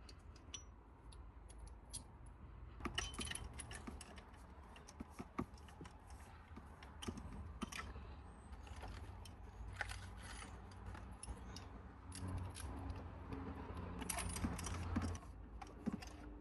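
Spark plugs being refitted by hand with a plug socket and tools: irregular metallic clicks and clinks, with a few short stretches of scraping and rattling.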